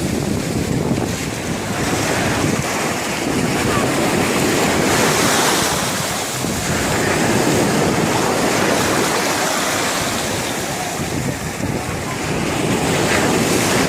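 Sea surf washing in and breaking on the shore, swelling and easing every few seconds, with wind buffeting the microphone.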